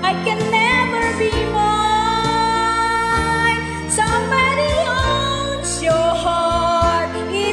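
Slow ballad's karaoke backing track in an instrumental passage, with a gliding melody line over sustained chords and low bass notes.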